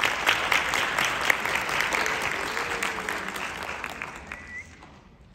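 Audience applauding in an auditorium, the clapping thinning out and dying away about four and a half seconds in.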